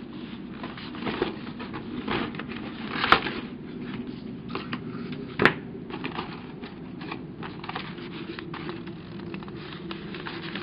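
A cardboard model-kit box being opened and loose sheets of printer paper handled: scattered rustling and scraping, with a sharp knock about three seconds in and another about five and a half seconds in.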